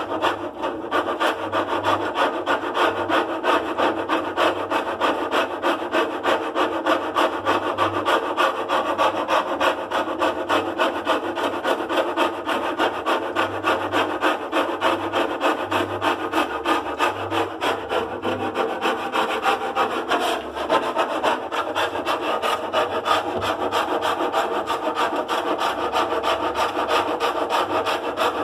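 A loud, steady rasping noise made of fast, evenly repeated scraping strokes that keeps going without a break.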